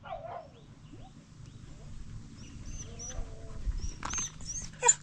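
Dogs yelping and whining in short calls, with a louder yelp near the end, while birds chirp high and thin in the background.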